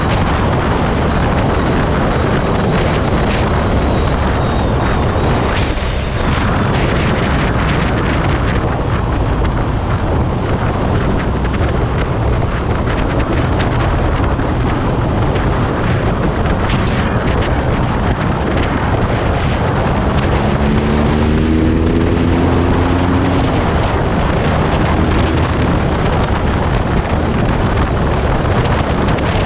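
BMW R nineT Urban G/S's boxer-twin engine running under way, largely buried in heavy wind noise on the microphone. About twenty seconds in, a tone rises for a few seconds.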